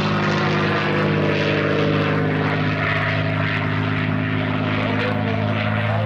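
North American T-28 Trojan's radial engine and propeller running steadily at low power as the plane lands and rolls out along the runway.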